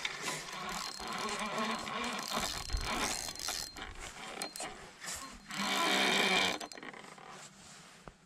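Spinning fishing reel being cranked, a continuous mechanical whirring of its gears while a hooked fish is reeled in, with a louder stretch about six seconds in.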